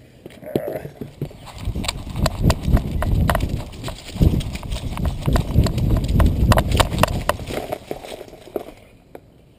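Dog running with a GoPro strapped to its back: a quick run of thumping footfalls and jolts of the body-mounted camera, with many sharp clicks over a low rumble. It builds up about a second in and dies away near the end.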